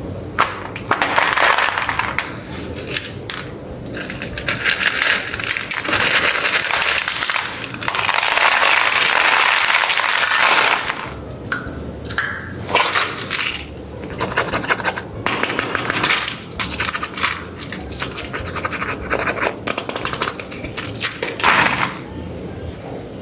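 Toys being handled: irregular scratching and scraping in bursts, with scattered light clicks.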